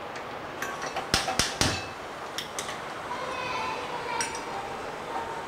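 Clinks and knocks of a pan and metal kitchen utensils being handled at a gas stove. A quick run of sharp knocks comes about a second in, with a few lighter clicks after.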